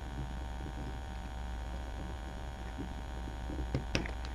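Steady electrical mains hum with faint handling noise, then two or three sharp metallic clicks about four seconds in as parts of a CMMG .22LR conversion bolt are fitted back together.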